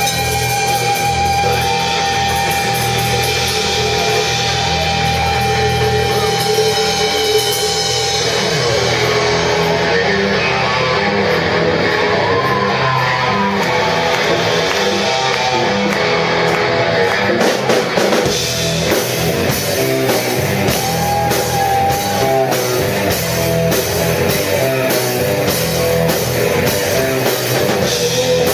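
Live rock band playing: electric guitars over electric bass and drum kit. A lead line holds one long note for about the first eight seconds, then moves into bending, wavering phrases.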